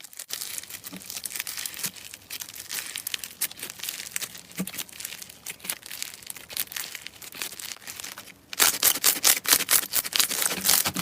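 Slime being worked and squeezed, giving a dense stream of small crackling, popping clicks that grows clearly louder about eight and a half seconds in.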